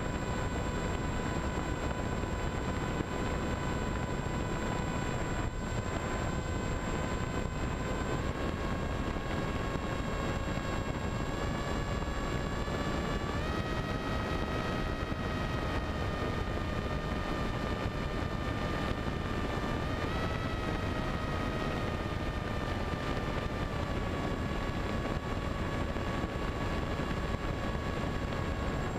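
Electric motor and propeller of a 900mm Popwing flying wing, heard onboard as a steady whine with wind rush across the microphone. The whine steps up in pitch a few times over the first half and eases down a little near the end.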